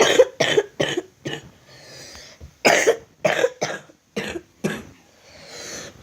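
A boy coughing in two quick fits, about five coughs, a short pause, then about six more, from a cold.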